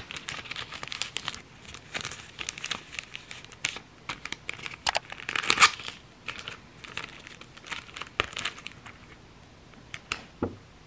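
Clear plastic cello sleeve crinkling and crackling in the hands as a sticker pack is slid inside and the backing strip is peeled off its adhesive flap to seal it. The crinkles come in quick runs, loudest around the middle, then thin out to a few clicks near the end.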